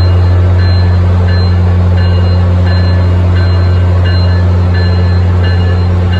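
Commuter rail diesel locomotive moving slowly into the platform, its engine giving a steady low drone while its bell rings about once every 0.7 seconds.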